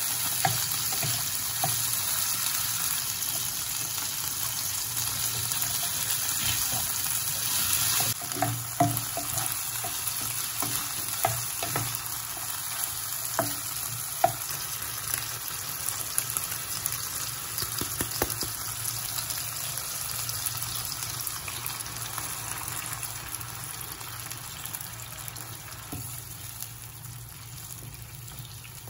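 Food sizzling in a hot pan, with short clicks of a utensil against the pan as it is stirred. The sizzle drops sharply about eight seconds in and then fades slowly.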